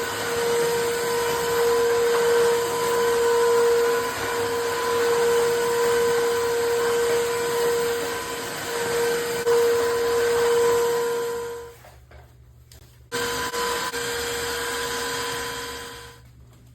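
Tineco iFLOOR 3 cordless wet-dry floor cleaner running with a steady whine. It winds down about twelve seconds in, starts again abruptly about a second later, and winds down again near the end.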